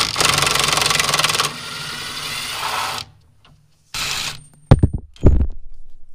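Cordless impact wrench hammering a suspension bolt loose for about a second and a half, then spinning more freely and quietly as the bolt backs out, stopping about three seconds in. A short burst of the tool near four seconds, then two heavy knocks.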